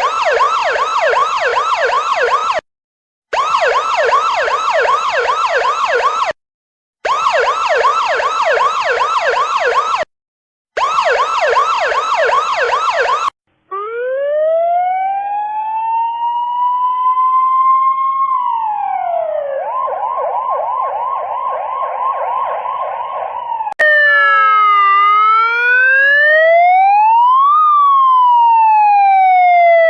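A run of different emergency-vehicle sirens. First a fast yelp siren in four bursts with short gaps. About fourteen seconds in, a siren winds up in pitch, drops and breaks into a rapid warble, and near the end a slow rising-and-falling wail takes over.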